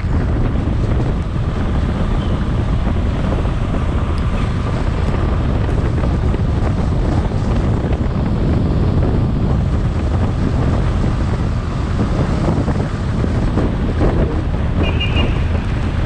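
Wind rushing over the microphone on a moving motorcycle, over a steady low rumble of engine and road. A short high beep sounds near the end.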